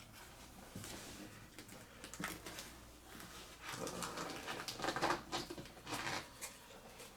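Trading cards being handled and sorted by hand: light card-on-card slides and flicks, with papery rustling that gets busier about halfway through.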